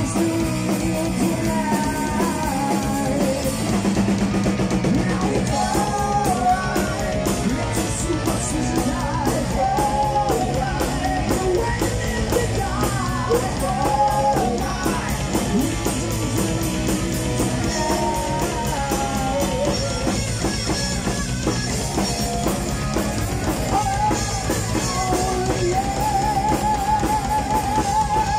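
Heavy metal band playing live: electric guitar, bass and a drum kit going at a fast pace, with a male lead vocalist singing over them. Near the end a long, wavering note is held.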